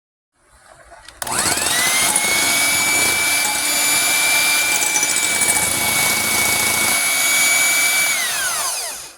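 Blender motor whipping dalgona coffee into foam. It starts about a second in, spins up quickly to a steady high whine, runs for about seven seconds, then is switched off and winds down near the end.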